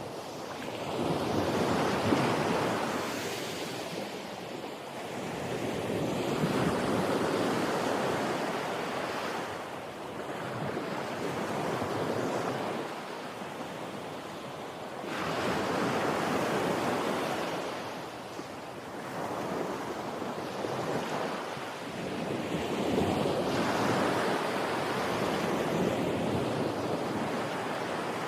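Ocean surf breaking on a beach: waves wash in one after another, each swelling to a rush of noise every four to five seconds and then easing off.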